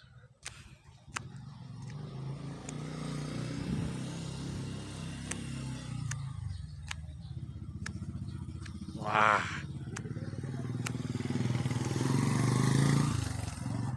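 Motorcycle engine running steadily, getting louder near the end as it comes close. A brief loud cry about nine seconds in.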